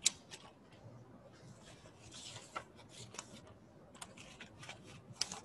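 Faint small handling noises: scattered sharp clicks and taps, the sharpest right at the start and another near the end, with a brief rustle about two seconds in.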